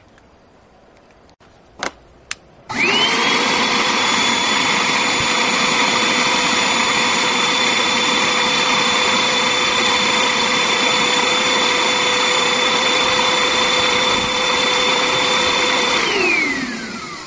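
Vacuum cleaner motor switched on after a couple of clicks, whining up to speed and running steadily, loud, for about thirteen seconds while it pulls air through the cigarette rig, then winding down in pitch near the end as it is switched off.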